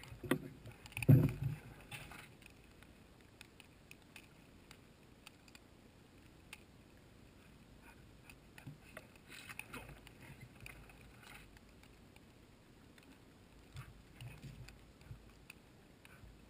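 Dogs moving about in snow right by the camera: a loud thump about a second in, then faint scattered scuffs and knocks, with short clusters of activity later on.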